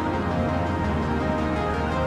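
Background music with sustained held chords over a steady bass line.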